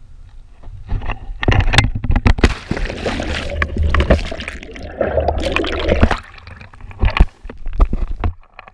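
Water splashing and sloshing around a boat, with irregular loud knocks and thumps.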